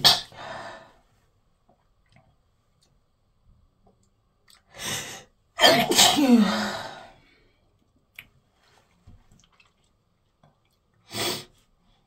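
A woman sneezing repeatedly, pollen-allergy sneezes: one at the start, a loud double burst about five to seven seconds in, and a short sneeze near the end.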